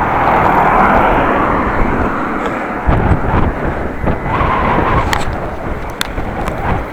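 Road traffic heard from a moving bicycle: a motor vehicle passing close, loudest about a second in, then a lower rumble, with a short steady whine about four seconds in and a few sharp clicks.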